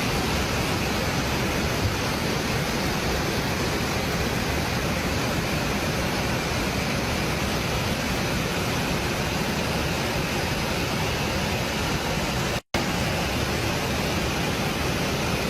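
Fast-flowing floodwater rushing in a dense, steady roar of noise, cut off for a split second about three-quarters of the way through.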